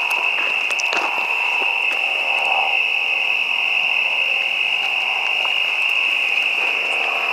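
Night insect chorus of crickets, a continuous high-pitched trill held at one steady pitch, with a few light scuffs of footsteps on a dirt path.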